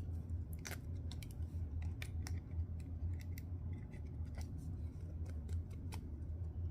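Scissors snipping several times in short, separate cuts, opening the packaging around a trading card.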